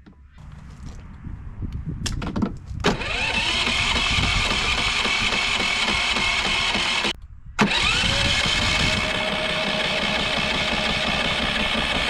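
Gasoline engine of a Westinghouse iGen4500 inverter generator starting and running up to a steady speed. It cuts out abruptly about seven seconds in, then starts again and settles to an even run.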